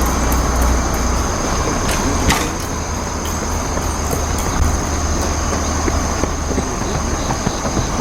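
Outdoor background noise dominated by a steady low rumble of distant road traffic, with a constant high-pitched tone over it and a single sharp click a little over two seconds in.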